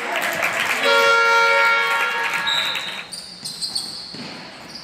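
Basketball arena scoreboard horn sounding one steady blast of about a second and a half, then a short high referee's whistle, over the echoing noise of the hall.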